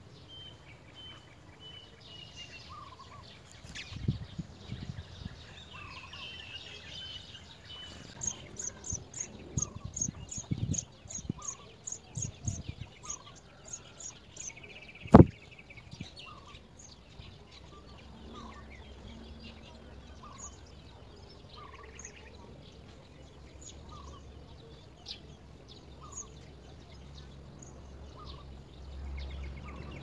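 Outdoor ambience with birds calling: a short chirp repeats about once a second, and a rapid run of high ticks comes through for several seconds in the middle. Low thumps fall between about 4 and 13 seconds in, and one sharp click about halfway through is the loudest sound.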